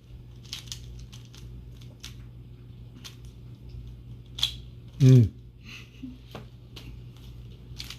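Rubik's cube being scrambled: irregular plastic clicks and clacks as the faces are twisted. A short loud vocal sound with falling pitch breaks in about five seconds in.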